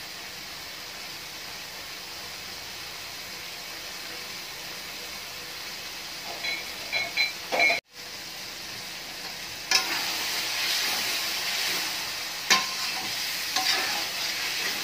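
Soya chunks and potatoes in masala sizzling in a steel karahi while they are bhuna-fried, with a metal fork scraping and clinking against the pan. The sizzling gets louder after a brief break about eight seconds in.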